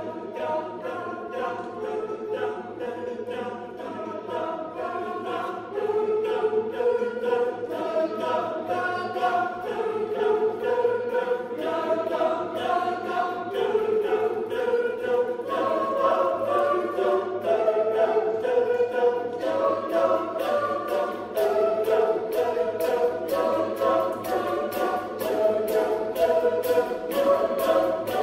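Boys' choir singing held, slowly shifting chords, getting louder about six seconds in. A steady ticking beat of about two a second runs under it and grows more prominent in the second half.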